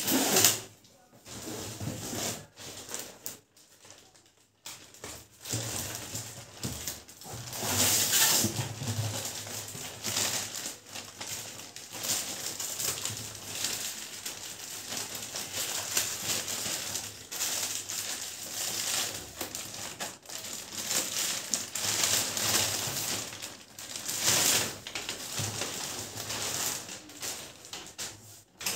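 Clear plastic wrapping crinkling and rustling as a packed pedestal fan's guard and blades are handled and unwrapped, with the cardboard box rubbing and scraping. The crackling comes and goes irregularly, loudest in two stretches, one about eight seconds in and one near the end.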